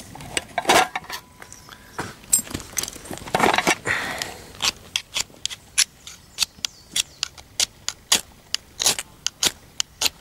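Metal striker scraped again and again down a homemade ferrocerium firesteel rod, throwing sparks onto magnesium shavings on an Esbit solid-fuel tablet in a folding stove. A few longer scrapes come in the first four seconds, then quick sharp strikes about three a second. The sparks are not lighting the tablet.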